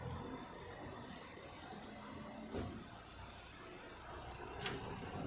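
Quiet street ambience with a car engine running in the background, growing slightly louder toward the end, and one sharp click about four and a half seconds in.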